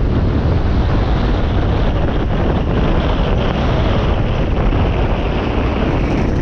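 Heavy wind rushing over the camera microphone while riding a dirt bike, with the bike's engine running underneath; steady throughout.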